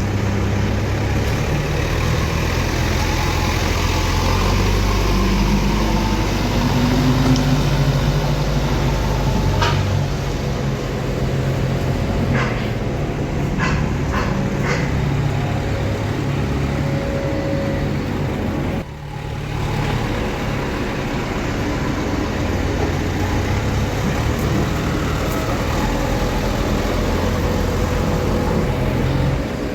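Heavy diesel engine running steadily, with a few short clicks near the middle and a brief dropout about two-thirds of the way through.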